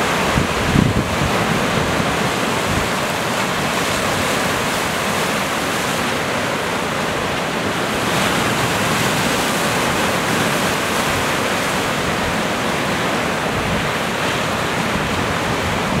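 Rough sea surf washing and breaking steadily on a rocky shore, with wind blowing across the microphone and a low gust rumbling briefly about a second in.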